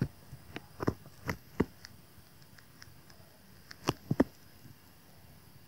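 A stylus tapping and clicking on a tablet screen while writing by hand: scattered light taps, several in the first two seconds and three close together about four seconds in.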